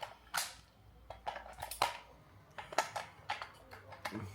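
Handling noises: a string of irregular, sharp clicks and light clatters of hard objects being picked up and fiddled with.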